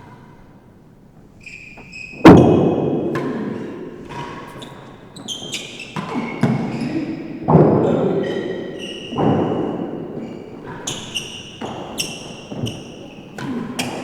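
Real tennis rally in an enclosed court: hard cork-cored balls struck by wooden racquets and rebounding off the walls and floor, about a dozen irregular sharp hits echoing around the hall. Short high squeaks come between the hits, and the loudest hit is about two seconds in.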